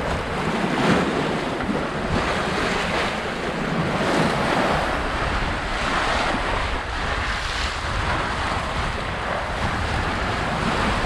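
Wind buffeting the microphone over the rush of the bow wave along the hull of a sailing yacht running under sail through choppy sea; a steady loud rushing that swells and eases irregularly with the waves.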